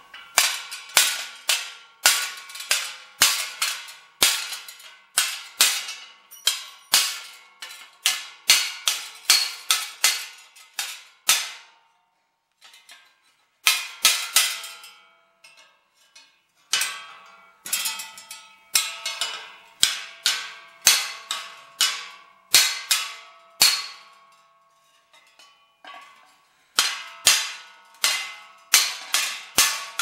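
A mallet striking the bent sheet-metal blades of a garden windmill wheel to straighten them: sharp metallic blows with a short ring, about two a second, in runs broken by a few brief pauses.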